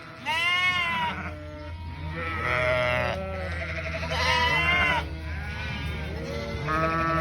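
Lambs bleating: several long, wavering calls, about four loud ones with fainter calls between and overlapping them.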